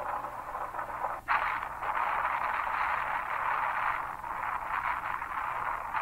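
Heavy rain falling, a steady hiss that dips for an instant about a second in.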